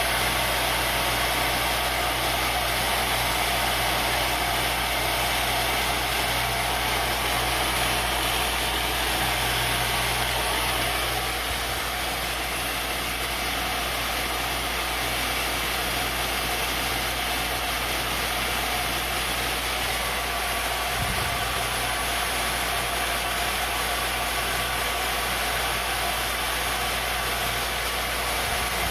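CNC-converted Little Machine Shop X2D mini mill running steadily, its belt-driven spindle turning an end mill that cuts into a wooden board. The sound drops a little about eleven seconds in.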